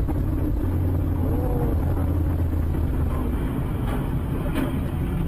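Steady low rumble of a car driving on a wet highway, engine and tyre noise heard from inside the cabin through a dashcam, with a couple of faint clicks near the end.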